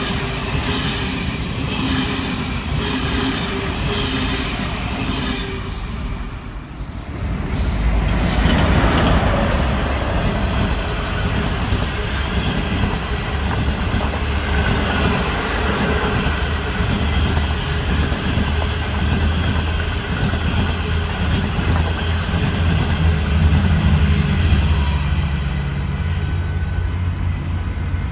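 A white high-speed electric multiple-unit train passing, with rhythmic wheel clatter and steady tones. After a brief dip about six seconds in, a loco-hauled passenger train of red coaches passes close by with a loud low rumble and wheel clatter over the rails.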